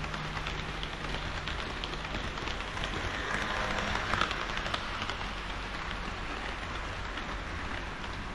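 HO-gauge model train of KiHa 40 and KiHa 58 diesel railcars running on the layout track: a dense, steady rattling clatter of wheels over the rails, swelling a little about three to four seconds in.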